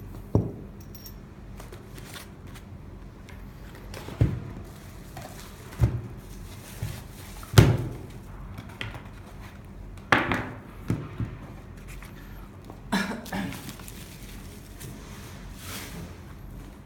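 Irregular knocks and thunks, about eight spread over the stretch and the loudest about seven and a half seconds in, from the antenna holder and parts being handled and set down on a surface.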